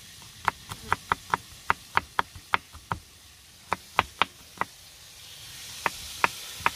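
Kitchen knife chopping garlic on a cutting board: sharp knocks of the blade striking the board, in quick runs of several strokes with short pauses between them.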